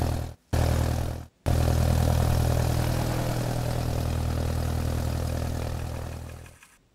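Propeller-plane engine running with a low, steady drone. It cuts out briefly twice in the first second and a half, then runs on and fades out near the end.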